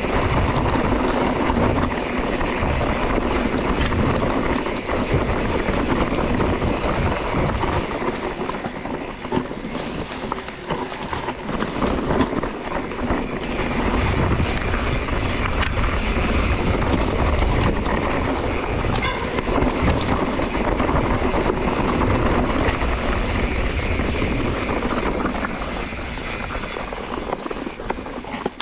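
Steady rumbling ride noise from a mountain bike in motion, with wind buffeting the microphone and a few brief rattles and clicks.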